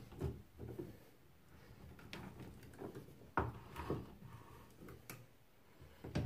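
Hand tap in an adjustable tap wrench cutting a thread into metal: irregular sharp clicks and scraping creaks as the tap bites into the metal, the loudest about halfway through and near the end.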